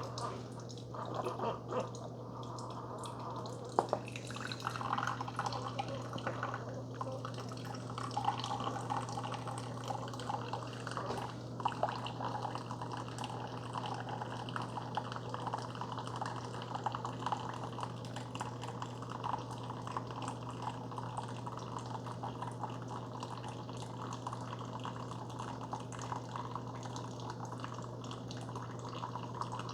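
Keurig K-Supreme Plus Smart single-serve coffee maker brewing a K-Cup on its robust strength setting. Coffee streams and spatters into the mug over a steady low hum from the machine's pump.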